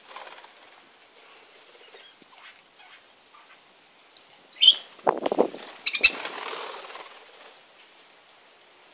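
Budgerigars' wings flapping in a short flurry about halfway through as birds fly onto a hand, with a couple of brief high chirps. The rest is faint.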